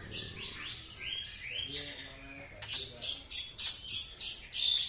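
Caged songbirds singing: chirps and sweeping whistled notes, then from about halfway a fast run of sharp repeated high notes, roughly three a second.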